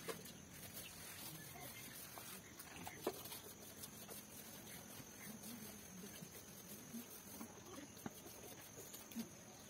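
Quiet background with faint animal calls and a few light taps.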